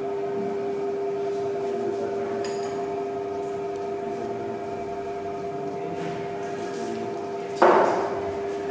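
A steady hum made of several fixed tones, unchanged throughout, with one sharp knock near the end.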